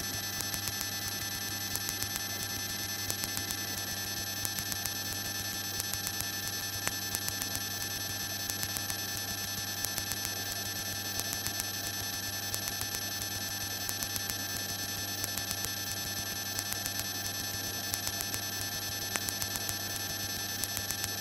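Steady engine hum and electrical whine of a Piper PA-38 Tomahawk in flight as heard through the cockpit intercom, with faint regular ticking running through it; one whine dips slightly in pitch about three seconds in.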